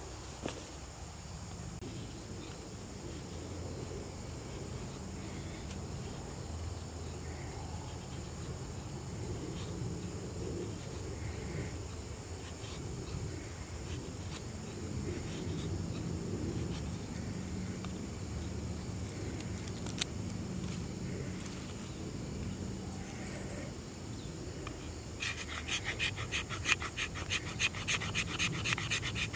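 Outdoor ambience with a steady high hum under a low rumble. About 25 seconds in, a knife blade starts scraping in quick repeated strokes, several a second.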